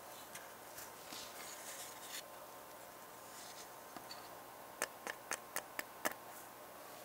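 Faint rustle of gloved hands handling a plastic model-car chassis, then a quick run of about six small sharp clicks, roughly four a second, as metal tweezers work at the red suspension pin in the wheel arch.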